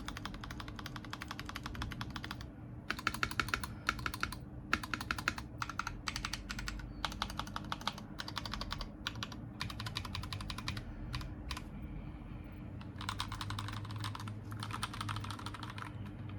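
Stock, unmodded Akko ACR-series mechanical keyboard being typed on in fast runs of keystrokes with short pauses between them.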